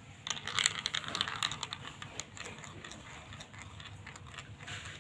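Marbles clattering through a plastic marble run: a dense rattle of quick clicks for the first second or two, then sparser clicks.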